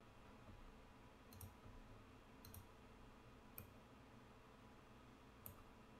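Faint computer mouse clicks, four of them about a second apart, over near silence.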